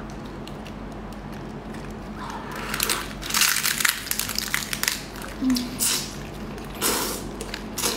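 A person eating, biting into and sucking shellfish meat out of a bundle of shells held to the mouth. Wet crunching and slurping mouth noises come in a run of short bursts starting about two seconds in.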